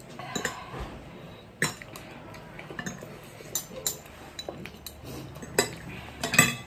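Metal forks clinking and scraping against plates while eating noodles: a scattering of sharp clinks, the loudest near the end.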